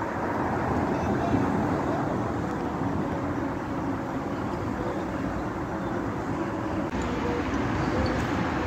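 Steady rumble of outdoor city road traffic with no distinct events.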